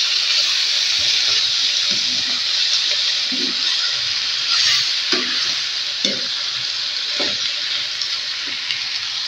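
Shredded napa cabbage and tofu sizzling steadily in hot oil in a wok while a spatula stirs them, with a few sharp knocks of the spatula against the pan.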